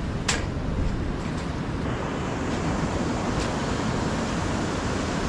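Steady rushing of churning white water pouring through a spillway, with one sharp click about a third of a second in.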